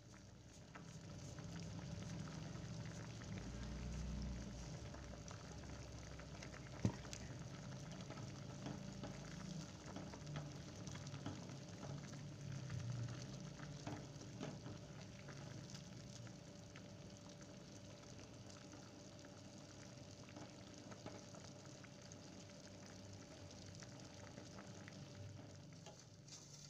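A pot of vegetable soup bubbling at a boil while a metal ladle stirs it, with small clicks throughout and one sharp knock about seven seconds in.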